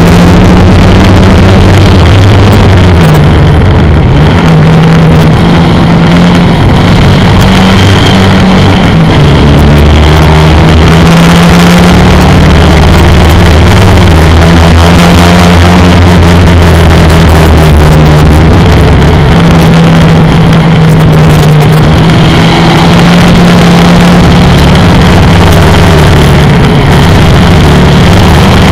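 1955 Austin-Healey 100M's four-cylinder engine running hard at racing speed, recorded onboard, loud and distorted. Its pitch dips briefly a few times, then holds steady again.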